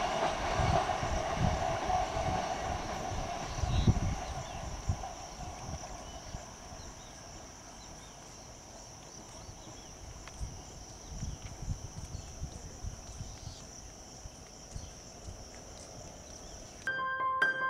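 EMU suburban electric train running away along the track, its wheels clattering over the rail joints and the rumble fading over the first five or six seconds. A quiet steady background with a high, even hiss follows. Music starts near the end.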